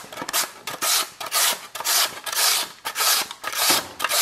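A carrot scraped back and forth over the blades of a plastic julienne grater, cutting it into thin shreds, in a steady rhythm of quick rasping strokes, about two to three a second.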